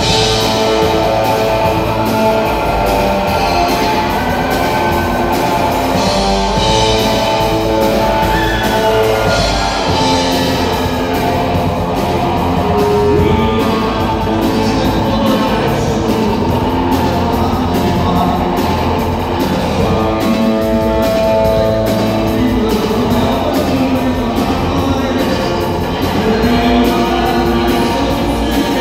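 Live rock band playing loudly: electric guitar, bass and drums, with two male singers singing into microphones.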